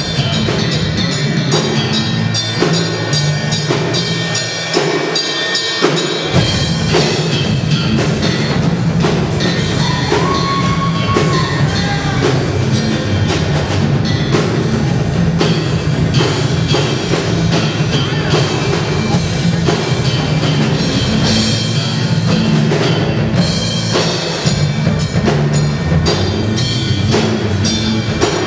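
Live instrumental funk jam by a rock band: electric guitars over a drum kit. About five seconds in the deepest bass drops away briefly before the full band comes back in.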